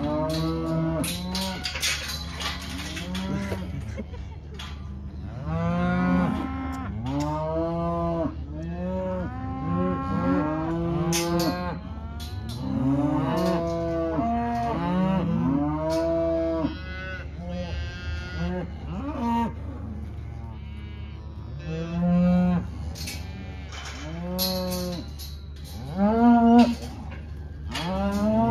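A herd of beef cows and calves bawling, one drawn-out call overlapping the next without a break, as the calves are sorted off from their mothers. Now and then a sharp knock cuts through.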